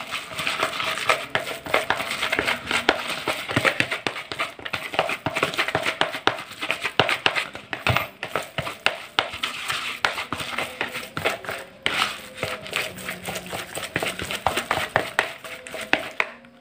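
A hand kneading and squeezing a crumbly, damp fish-bait mix in a plastic bowl: dense, irregular crackling and rustling with quick knocks against the bowl, stopping just before the end.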